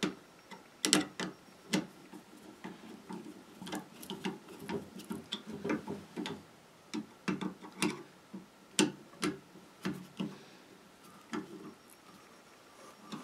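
Irregular metallic clicks and ticks of a screwdriver and an adjustable wrench working the clamp screws of a saddle valve on copper pipe, tightening it down.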